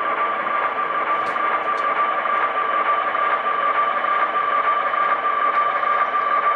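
HO scale model train running slowly along the track, a steady mechanical drone with a strong, constant high hum. A couple of faint clicks sound between one and two seconds in.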